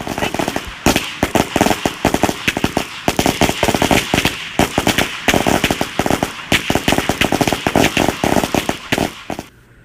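Firecrackers going off in a rapid, irregular run of sharp bangs, several a second, stopping shortly before the end.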